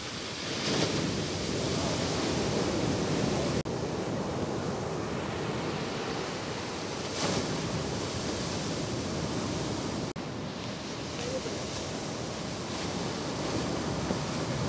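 Ocean surf: waves breaking and washing in a steady roar of white water, swelling louder as a wave crashes about a second in and again about seven seconds in. The sound cuts out for an instant twice.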